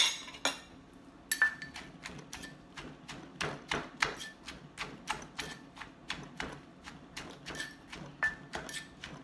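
Pestle knocking in a mortar in quick, irregular strokes, about two to three a second, some with a short ring: green papaya salad being pounded together with its seasonings.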